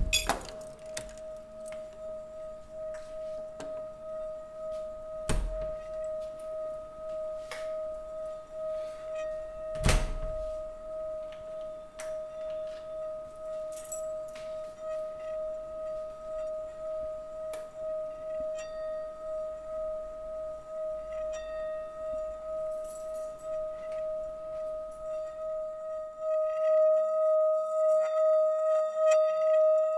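Sustained ringing metallic tone, pulsing a couple of times a second, with sharp thuds about five and ten seconds in; the tone swells louder near the end.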